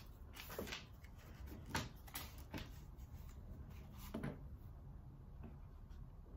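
Faint, scattered clicks and light knocks, four or five at uneven spacing, from handling small wiring parts and tools while wiring a motor control panel.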